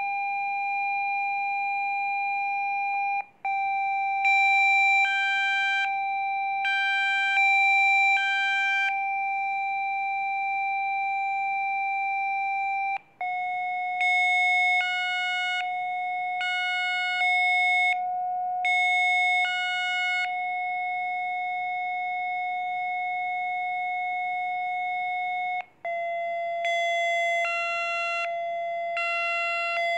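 Electronic Rife-frequency tones: several steady tones sounding together, stepping a little lower in pitch about every ten seconds with a brief break at each change. In some stretches, higher tones switch on and off about once a second.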